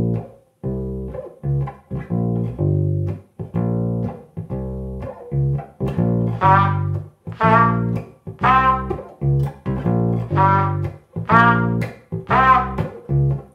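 Electric bass guitar playing a repeating intro bass line. About six seconds in, a trumpet joins with short notes about once a second.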